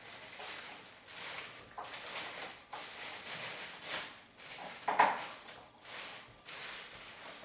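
Clear plastic packaging crinkling and rustling in uneven swells as a part is unwrapped, with a louder crackle about five seconds in.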